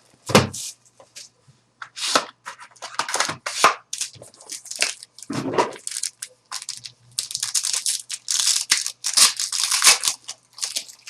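Trading-card packaging being torn open: a run of irregular ripping and crinkling strokes as the wrapping of a sports-card box is pulled off.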